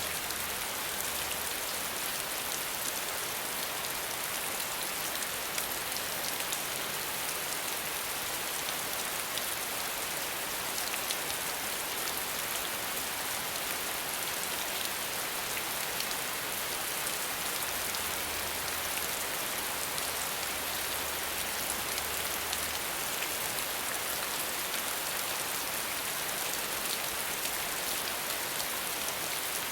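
Steady rain falling, an even hiss of many fine drops with no thunder.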